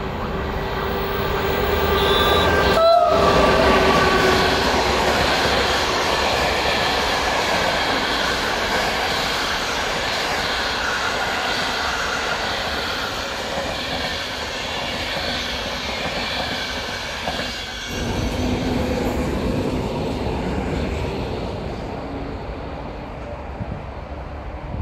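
EU07A electric locomotive and its Intercity passenger coaches passing at speed, with a steady rush and clatter of wheels over the rails. A horn sounds a few seconds in and drops in pitch as the locomotive goes by.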